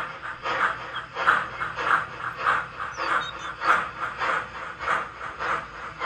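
Steam exhaust chuffs from an HO-scale model steam locomotive's sound system, a steady beat of about one and a half chuffs a second as the engine pulls slowly.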